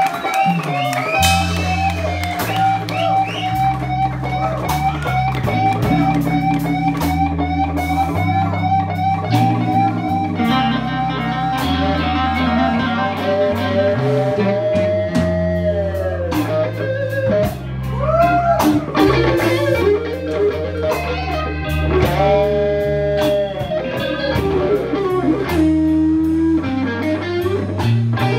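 Live slow blues from an electric trio: a lead electric guitar plays long, bent, sustained notes over a walking bass line and drums.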